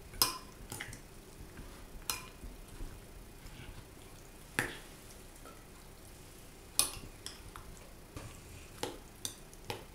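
Metal spoon stirring lablabi, a wet mix of chickpeas, soaked bread and harissa, in a ceramic bowl. Sharp clinks of the spoon against the bowl come every second or two.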